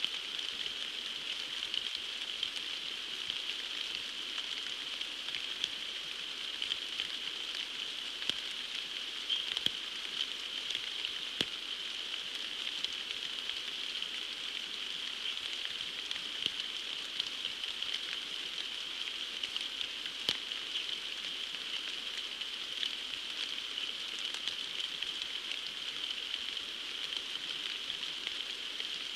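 Heavy rain falling on a pond's leaf-covered surface: a steady hiss with scattered sharp drop ticks.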